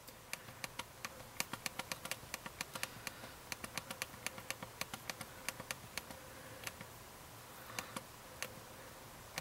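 BlackBerry Storm's SurePress touchscreen clicking under the thumbs as each key is pressed in typing: a quick, uneven run of sharp clicks, several a second, thinning out near the end.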